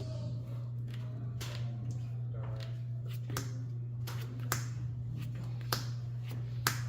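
Trading cards being flipped and laid down on a table, a sharp tap every second or so, over a steady low hum.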